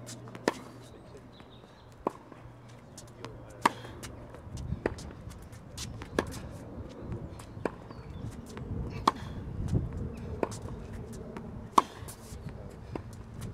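Tennis ball being struck by rackets and bouncing on a hard court during a baseline rally: a sharp pop about every second and a half, some much louder than others.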